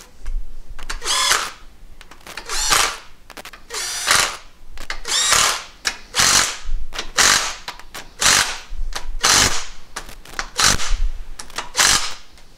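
Makita 18V cordless driver running in about ten short bursts, each under a second, spinning down the diaphragm-head bolts on a chemigation injection pump a little at a time so the head seats evenly.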